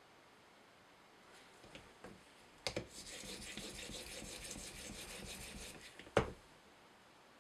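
A 2000-grit sharpening stone on an Edge Pro guide arm rubbed across the edge of a CTS-20CP steel knife blade: a steady scratchy rasping for about three seconds. It starts with a click and ends with a sharp knock.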